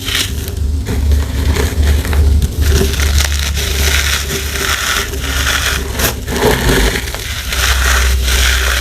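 Blocks of compressed powder, cornstarch and gym chalk 'crunchies', being crushed, giving one dry crunch after another.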